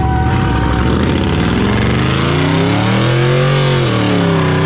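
Car engine revving hard during a burnout, its pitch climbing for about three seconds then dropping sharply and starting to climb again near the end, over the hiss of a rear tyre spinning against the pavement.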